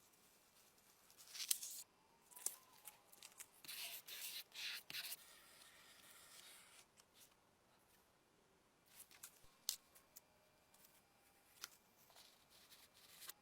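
Hand work on an old hair dryer's small parts: short scrapes, rubs and sharp clicks come in bursts, loudest about a second and a half in and again around four to five seconds in, with smaller clicks later.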